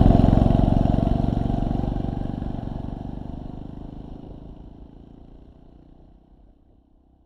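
Motorcycle engine running steadily while being ridden, its firing pulses even throughout, the whole sound fading out gradually to near silence by the end.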